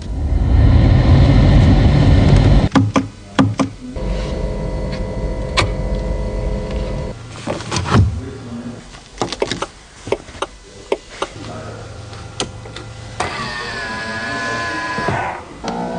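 Bugatti Chiron Pur Sport's quad-turbo W16 engine running with a deep rumble for the first few seconds, then a string of sharp clicks and knocks with steady mechanical whirring in between.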